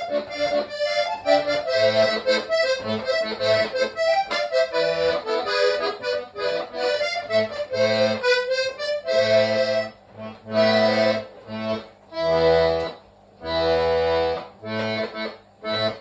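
Hohner Trichord three-row diatonic button accordion playing a quick melody over bass notes, then a few long held chords with short breaks between them.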